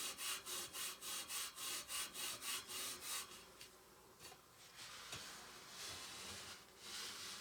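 Fine 0000 steel wool scrubbing a corroded, hand-painted bicycle rim soaked in penetrating fluid: quick, even back-and-forth strokes, about four or five a second, that stop about three seconds in and give way to softer, slower rubbing.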